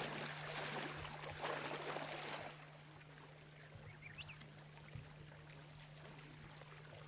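Water swishing and lapping against the hull of a dugout canoe being poled through shallow swamp water, louder for the first two and a half seconds and faint after that. A brief faint high chirp about four seconds in.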